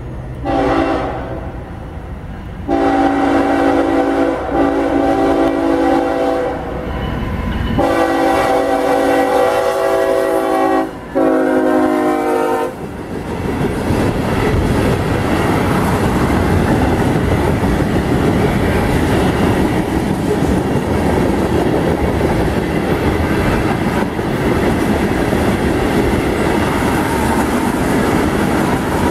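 CSX freight train sounding its multi-note locomotive horn for a grade crossing. There is a short blast, then several long ones, and the last blast drops in pitch as the locomotive passes. After about 13 seconds comes the steady rumble and clatter of tank cars rolling by on the rails.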